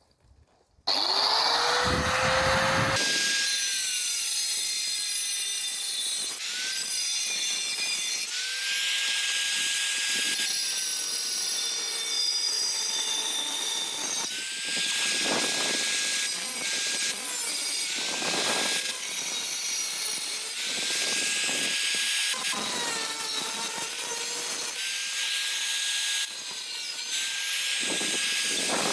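Angle grinder switched on about a second in, its motor whine rising to full speed. It then grinds into a steel saw blade with a steady hiss, the whine dropping in pitch each time the disc is pressed into the metal, several times over.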